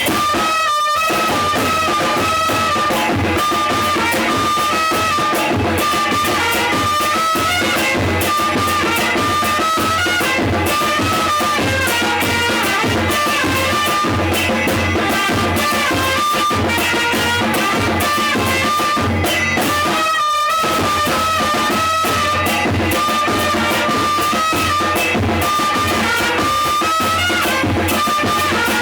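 Two trumpets playing a melody over a snare drum and a murga bass drum (bombo murguero) in a loose street-band groove, with a short break about twenty seconds in.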